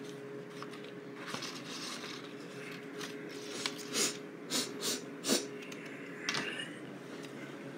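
Quiet handling of paper and cardboard cards in a plastic basket: a few soft rustles and taps, bunched in the middle, with a longer rustle near the end, over a faint steady hum.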